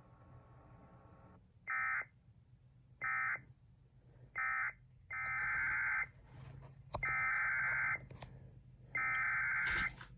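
Emergency Alert System digital data bursts, a harsh warbling two-tone screech. First three short end-of-message bursts closing the previous alert, then three longer header bursts opening the next one.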